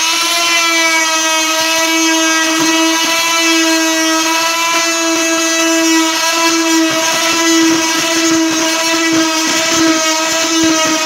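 Oscillating multi-tool fitted with a putty-knife scraper blade running at a steady buzzing pitch, the blade scraping old carpet glue and padding off a hardwood floor with irregular scratchy clicks.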